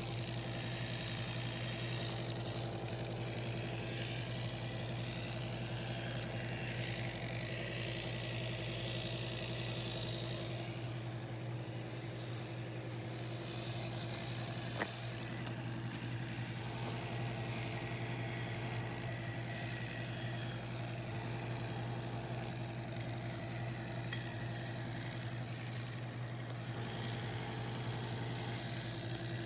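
Battery-powered Thomas toy engine's small electric motor and gearbox running with a steady whirring hum as it drives along wooden track pushing a line of wooden engines. A single sharp click about fifteen seconds in.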